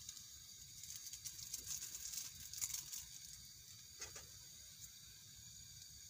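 Plastic instant-noodle seasoning sachets being torn open and crinkled: a couple of seconds of crackling starting about a second in, then a single click, over a steady background hiss.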